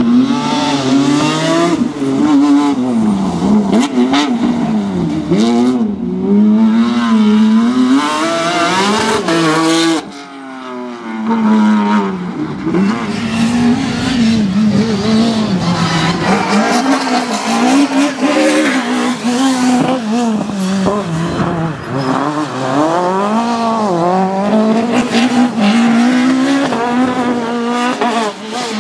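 Rally car engines revving hard, the pitch repeatedly climbing and dropping with gear changes and lifts through corners. A short lull about ten seconds in is followed by another car's engine.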